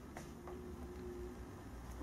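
Quiet room tone with a low steady hum, a faint click near the start and a faint held tone around the middle.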